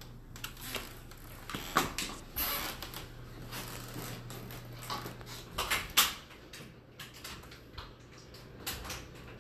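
Footsteps on a wooden floor and handling of the phone camera: scattered knocks and clicks with a brief rustle, the sharpest about six seconds in, over a low steady hum that stops about halfway through.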